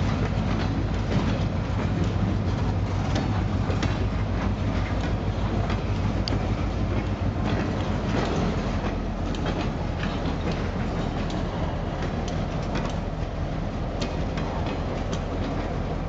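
Freight cars of a slow-moving train rolling past on jointed yard track, wheels clicking and knocking irregularly over rail joints. Underneath runs a steady low rumble from the train and its diesel locomotive.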